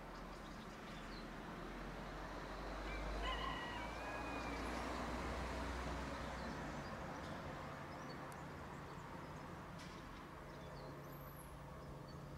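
Faint outdoor ambience: a steady low hiss and hum with a few short bird chirps about three to four seconds in.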